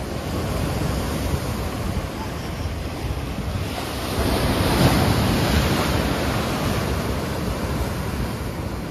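Ocean waves washing and breaking against a rock breakwater, swelling to a louder crash about five seconds in as a wave surges over the rocks, with wind rumbling on the microphone.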